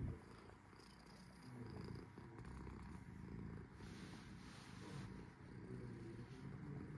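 A cream-coloured longhaired cat purring steadily while its chin and neck are stroked, the purr swelling and easing about once a second.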